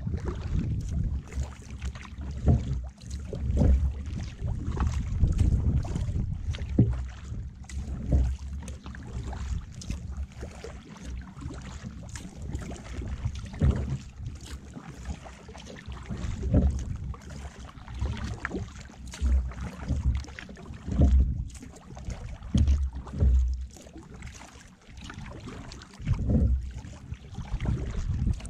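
Kayak paddling: paddle strokes and water splashing against the kayak's hull. Under them is a low, gusty rumble of wind on the kayak-mounted camera's microphone.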